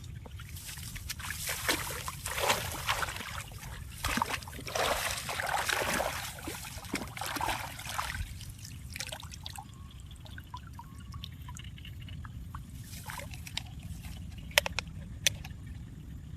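Water sloshing and trickling for several seconds, then quieter, with a few sharp clicks near the end over a steady low rumble.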